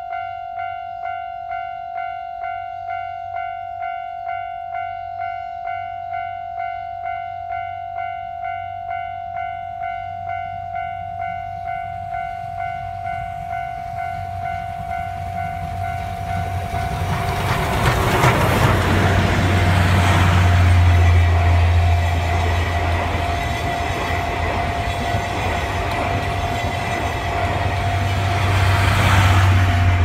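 Japanese level-crossing alarm bell ringing in a steady repeating ding-ding throughout. About halfway in, steam locomotive C57 180 and its passenger carriages rumble up and pass close by, the rumble and wheel clatter growing loud and drowning the bell, with a second swell near the end.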